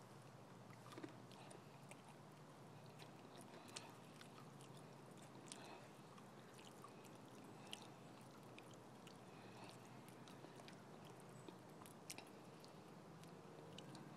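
Fox squirrel chewing food: faint, irregular small clicks and crunches over a quiet hiss.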